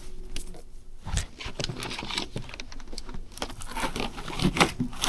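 An insulated catering bag and a clear plastic catering tray being handled: a run of short rustles, crinkles and clicks as the lidded tray is set into the foil-lined bag.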